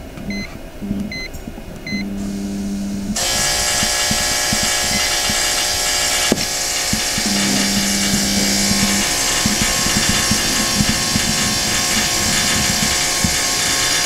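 A few short electronic beeps from the thermostat's buttons. About three seconds in, a loud, steady buzz from the Mr Heater Big Maxx 80,000 BTU shop heater starts and keeps on; the owner puts the buzzing down to the heater's igniter.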